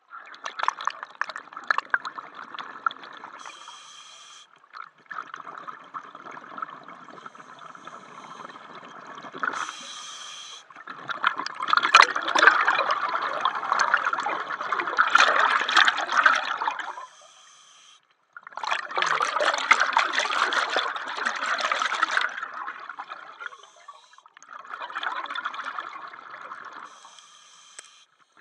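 A scuba diver breathing through a regulator underwater. There are five long exhalations, each a few seconds of bubbles rushing out, and each is separated by a short hissing inhalation through the demand valve.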